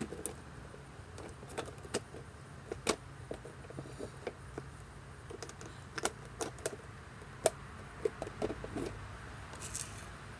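Scattered light clicks and taps at irregular intervals, the loudest about three seconds in and again past seven seconds, from small objects being handled close to a phone microphone, over a faint steady low hum.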